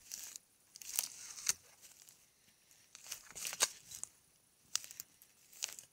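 Footsteps brushing and crunching through long grass and dry forest litter at an irregular walking pace, with a few sharp twig snaps.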